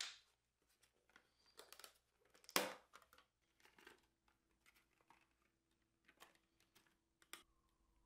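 Faint crinkling and clicking of a clear plastic salad clamshell being opened and handled, with one louder crackle about two and a half seconds in.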